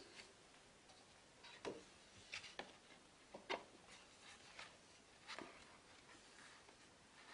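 Stiff photobook pages handled and turned by hand: a few faint, short paper rustles and soft taps spread through the quiet.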